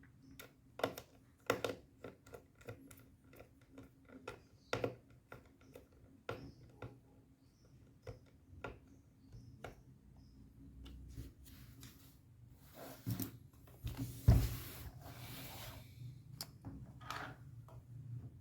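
Irregular light clicks, taps and rubbing of hands working on a laptop, with a louder knock about fourteen seconds in.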